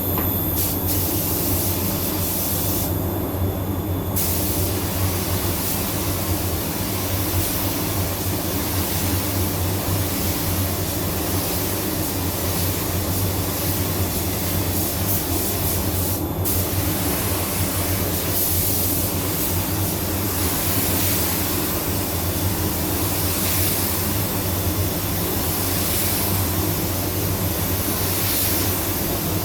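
Paint spray gun hissing steadily as it lays on a coat of clear, over a steady low drone. The hiss drops out briefly twice, about three seconds in and again about sixteen seconds in.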